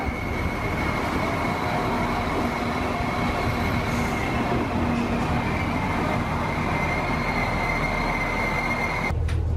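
Irish Rail InterCity diesel railcar moving along a station platform, a steady high-pitched wheel squeal over the rumble of the train. About nine seconds in, the sound cuts to a steady low hum inside the carriage.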